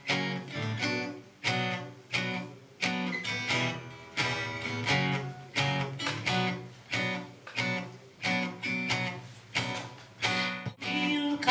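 Acoustic guitar strummed chord after chord in a steady rhythm, each strum ringing out before the next: the instrumental introduction to a song.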